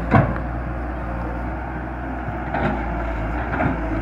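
Hyundai Robex 130-W wheeled excavator's diesel engine running steadily while it works, with a sharp knock just after the start and two fainter knocks later on.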